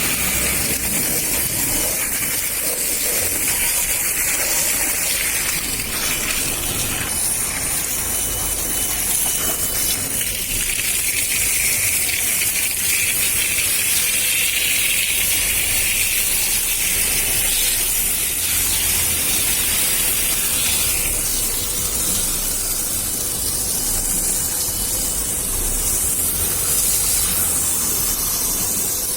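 Water spraying steadily from a hose onto a window air conditioner, rinsing dust off the unit before it is washed with detergent.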